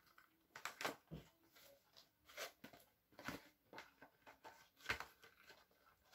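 Faint, scattered clicks and rustles of a DVD box set being handled: plastic disc cases and cardboard sleeve shifted about, about seven small knocks spread through a near-silent room.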